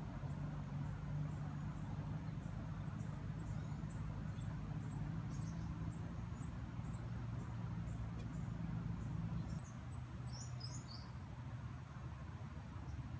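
Outdoor ambience of insects trilling steadily in a high thin note under a low steady hum that drops away about ten seconds in, with a few short bird chirps near then.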